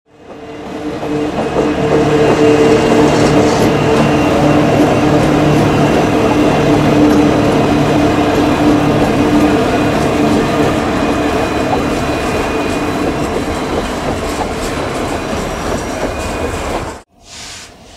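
Indonesian CC 205 diesel-electric locomotive running past close by: a steady engine drone over the rumble and clatter of the train on the rails. It fades in over the first couple of seconds, stays loud, and cuts off abruptly shortly before the end.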